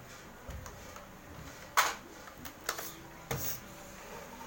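A few sharp clicks and knocks against a quiet background; the loudest comes just under two seconds in, with two fainter ones about a second and a second and a half later.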